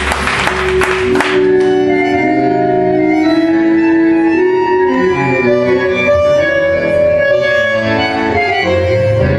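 Tango music with long held reed notes of the kind a bandoneon plays. Applause runs through the first second and a half, then stops.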